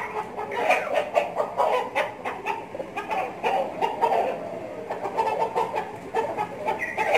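A flock of broiler breeder roosters clucking, with many short calls overlapping throughout.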